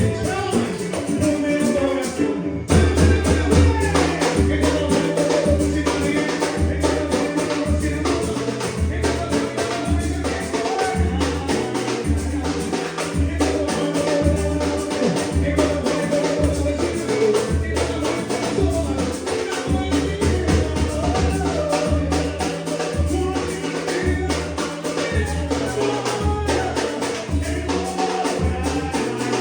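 Latin-style music with a pulsing bass line, shaker and tambourine percussion, and singing. The track cuts out for a moment about two and a half seconds in, then resumes.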